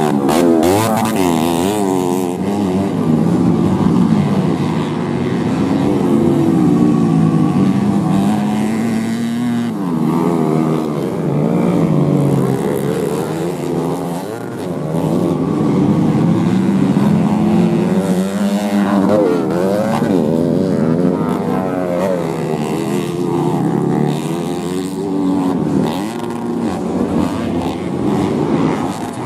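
Several modified underbone motorcycles racing on a dirt track, their engines revving up and falling back in overlapping, rising and falling whines as they jump and corner.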